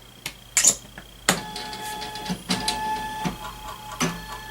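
A couple of sharp clicks, then, from about a second in, the motors of a three-axis gantry robot whining steadily, with clicks and shifts in pitch, as it drives its axes back to the home position after power-up.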